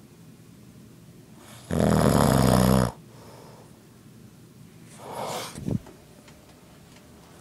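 An elderly man snoring in his sleep: one loud snore about two seconds in, lasting about a second, then a softer breath about five seconds in.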